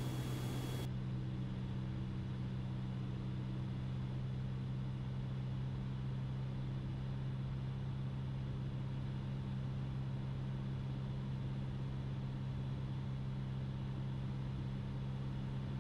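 Steady low drone of a Cessna 177RG Cardinal's four-cylinder Lycoming IO-360 engine and propeller at reduced power on landing approach.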